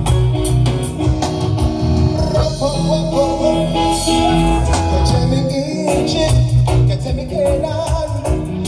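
Live reggae band playing: drum kit, bass guitar, electric guitar and keyboards, with a male lead vocal singing over it.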